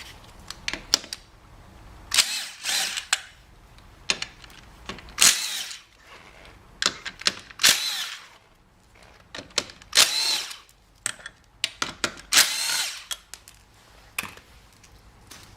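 Power drill run in about six short bursts, each spinning up and winding down, with sharp clicks and knocks of tool handling between them.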